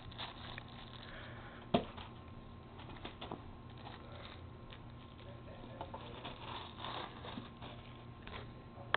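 Cellophane and tissue paper crinkling and rustling as a baby's hands pull them about, with one sharp knock about two seconds in and another at the very end.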